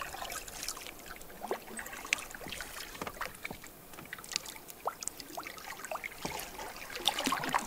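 A canoe being paddled on calm water: the paddle dipping, with scattered small drips, trickles and light splashes of water.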